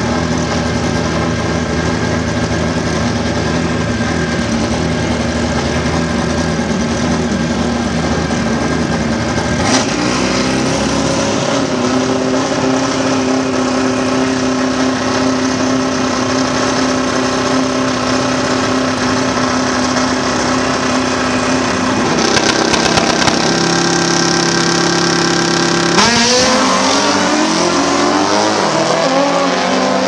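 Drag racing motorcycle engine running at the start line, held at a steady pitch that steps up twice as the revs are raised. Near the end it launches, with a sharp crack and then a rising pitch as it accelerates away.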